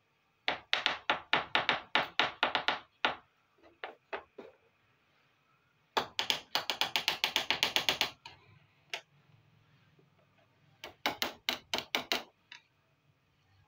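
Small plastic miniature toy kitchen pieces tapped rapidly against a tabletop: three runs of quick sharp taps, the middle run the fastest.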